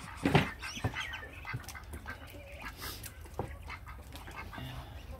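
Backyard ducks and chickens calling, in short scattered calls, with one louder call about half a second in.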